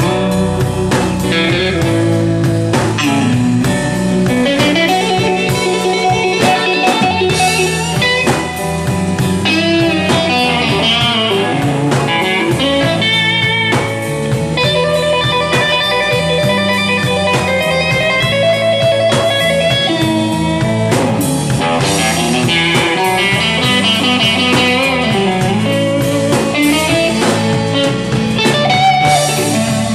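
Live blues band playing an instrumental passage, with electric guitar lines over bass and drums.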